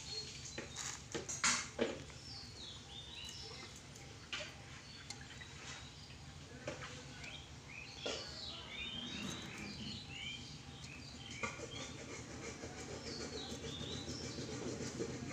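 Birds chirping in runs of short falling notes, several times over. A few sharp clicks about a second in, and a steady low hum underneath.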